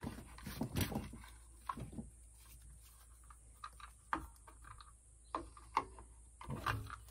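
Scattered light clicks and knocks of a plastic pressure-switch cover being handled and fitted onto a well-pump pressure switch.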